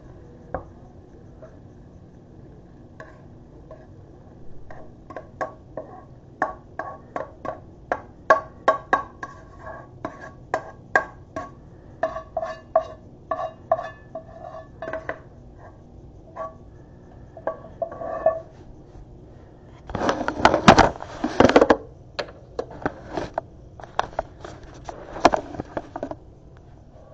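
A fork knocking and scraping noodles out of a frying pan onto a ceramic plate: a long run of ringing clinks, about two a second, then a louder clattering scrape about twenty seconds in, followed by a few more knocks.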